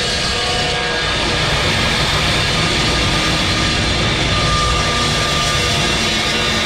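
Evolution metal chop saw running steadily as its blade cuts through steel box section.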